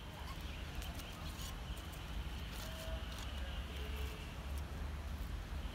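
Outdoor ambience: a steady low rumble, with a faint short call twice near the middle.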